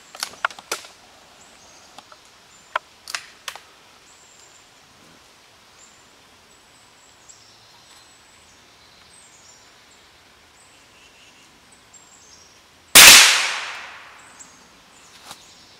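A few light clicks early on, then about thirteen seconds in a single shot from a Savage Mark II FV bolt-action .22 LR rifle firing a CCI standard-velocity round: one sharp report that dies away over about a second.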